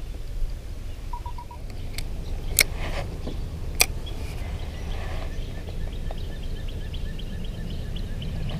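Low steady rumble with a few sharp clicks and knocks from handling a spinning rod and reel, over a faint even ticking. A short chirping sound comes a little after the start.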